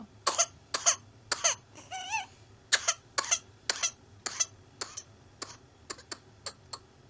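A child's paroxysmal whooping-cough (pertussis) fit: a long run of short, hacking coughs, about two a second, with no breath between them. The coughs are loudest in the first few seconds and grow weaker toward the end. About two seconds in, a short wavering pitched sound breaks into the run.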